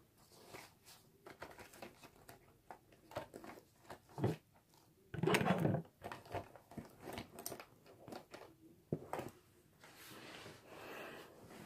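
A makeup product being handled and opened close to the microphone: a run of small clicks, taps and crinkling, with one louder rustle lasting under a second about five seconds in.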